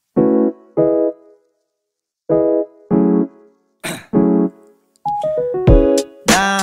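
Background music: a run of short, separate chords, joined about five seconds in by a fuller backing with a low beat.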